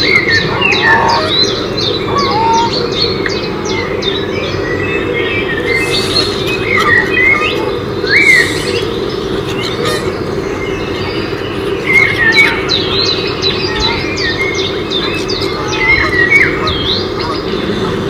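Many birds calling, a dense mix of short chirps, quick up-and-down notes and squawks, over a steady low hum.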